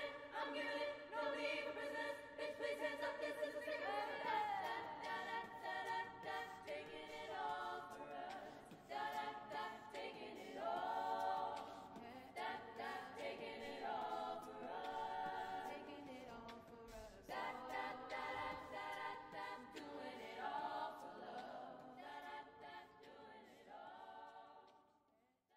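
An R&B a cappella group singing in close harmony, several voices together with no instruments. The singing fades out near the end.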